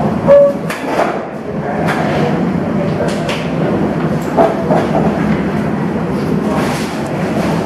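Steady background hubbub with scattered sharp clicks and knocks, one loudest about half a second in.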